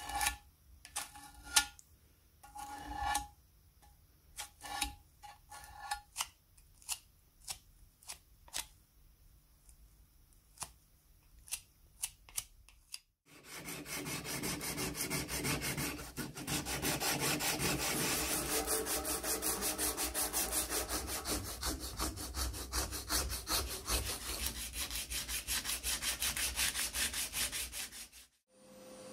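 Metal part of an antique crepe iron being sanded by hand with abrasive paper: a fast, even run of rubbing strokes that starts about halfway through and stops shortly before the end. Before that, short separate scrapes and clicks as a small metal lever is worked by hand.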